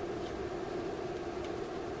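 Steady background hum with two faint clicks as a multimeter and its test probes are handled.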